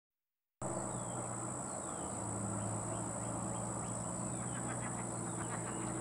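A steady high-pitched insect drone, with a bird's short falling call notes over it that come quicker near the end, and a low steady hum underneath; it all starts about half a second in.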